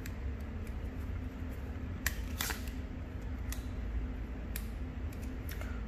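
A handful of small, sharp plastic clicks and snaps from a Sony Ericsson mobile phone being handled as its back battery cover is pried off, over a low steady hum.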